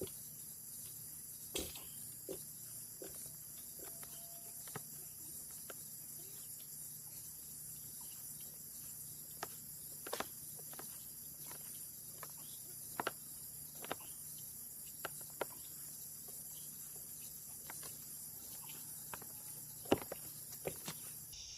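Night chorus of crickets, a steady high-pitched trill throughout, with faint scattered clicks and knocks at irregular intervals.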